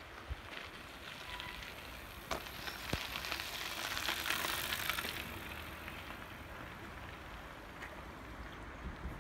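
A wheeled vehicle passing close by: a hiss with rapid fine ticking rises and fades, loudest about four seconds in.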